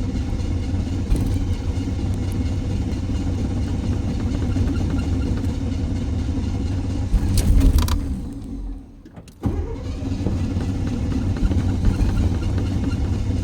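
Car engine running steadily, surging louder about seven seconds in, then dying away for about a second before it abruptly catches again and runs on. This is a hard-starting engine that stalls and restarts.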